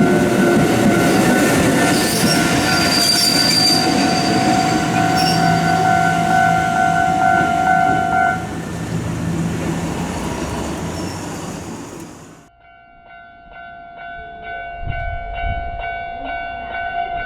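A train passing over a Japanese level crossing, its wheels rumbling, with a brief high squeal from the wheels a few seconds in. The crossing's warning bell tones sound through it. About twelve seconds in the train sound cuts off suddenly, and a crossing warning bell rings on its own with evenly spaced strikes.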